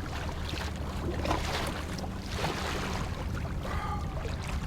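Wind and water noise around a kayak on open water, with scattered small splashes and knocks over a steady low hum.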